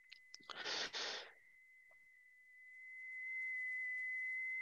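A steady high-pitched electronic tone, faint at first, swells about halfway through and then holds level. About a second in there is a short rush of hiss, and a few small clicks.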